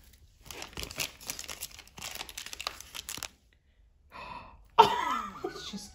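Plastic candy wrapper crinkling and rustling in the hand, in irregular crackles, louder near the end.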